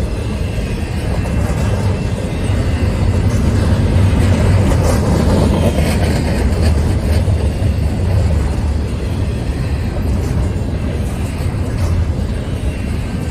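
Canadian Pacific double-stack intermodal train cars passing close by: a steady, loud rumble and rattle of steel wheels on the rails, with scattered faint clanks.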